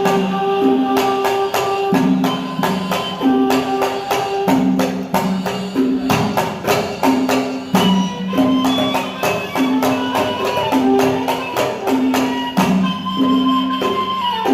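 Instrumental passage of Yemeni sawt music: a melody of held, stepping notes over a dense rhythm of sharp hand-percussion strokes.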